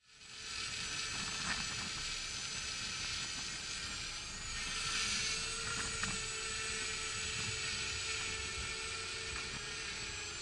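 ONAGOfly 1 Plus mini quadcopter's motors and propellers whining steadily in flight, the high pitch wavering slightly, with a few faint clicks.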